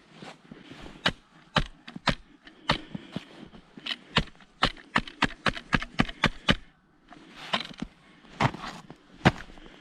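Footsteps crunching through snow, mixed with trekking-pole tips striking the ground: a string of sharp crunches and clicks, quickening in the middle, with a brief pause about seven seconds in.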